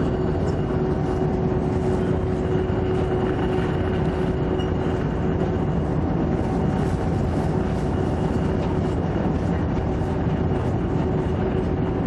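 Icebreaker ship running steadily with a constant engine hum, under a loud even rushing of the hull pushing through drift ice, with faint crackles throughout.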